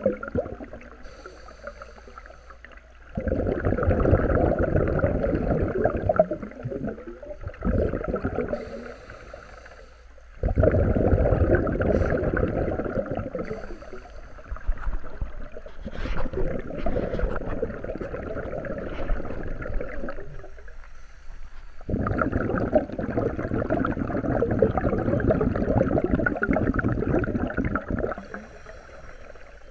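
Scuba regulator exhaust bubbles recorded underwater: several long stretches of bubbling as the diver breathes out, each lasting a few seconds, with quieter gaps between them that carry a faint high hiss.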